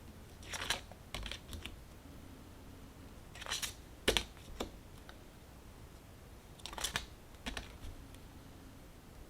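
Tarot cards being handled and flipped: short, crisp card-stock snaps and slides that come in small clusters every few seconds.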